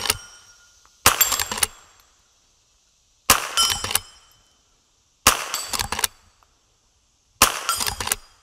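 Henry Small Game lever-action .22 rifle fired four times, about two seconds apart. Each shot is followed by the ping of steel plate targets ringing briefly.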